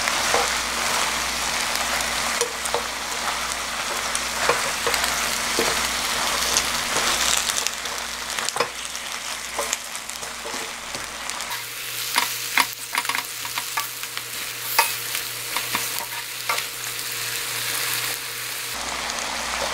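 Spicy marinated chicken and vegetables sizzling in a nonstick wok while being stirred with a wooden spatula and chopsticks. The utensils make frequent clicks and scrapes against the pan, more often in the second half.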